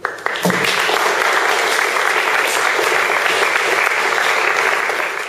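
Audience applauding: a few first claps, then full, steady clapping within half a second.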